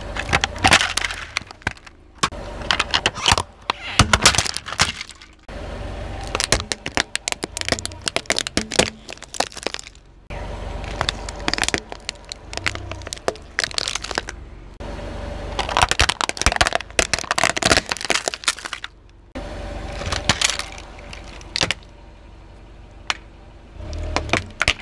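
Hard plastic toy trucks cracking and snapping as a slowly rolling car tyre crushes them. The cracking comes in several bursts of dense sharp snaps, each a few seconds long, with short pauses between them.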